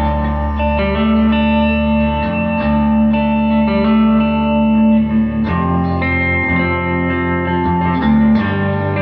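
Electric guitar, a Les Paul replica with PAF-style humbuckers, played through a 1964 Gibson GA77 RVT Vanguard tube amp into a Marshall Heritage speaker. It is playing held, ringing chords and notes that change every second or two.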